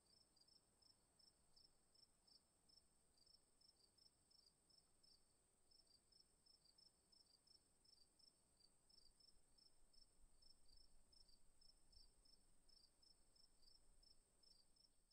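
Near silence, with a very faint high-pitched chirping that repeats a few times a second over a faint steady high whine.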